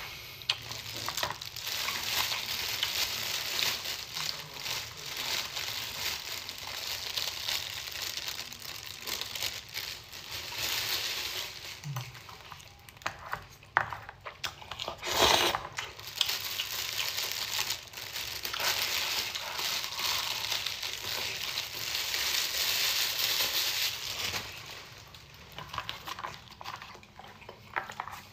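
Close-up eating sounds: noodles slurped and chewed from a pot with chopsticks, with plastic bag crinkling and small clicks. A louder, short noise comes about fifteen seconds in.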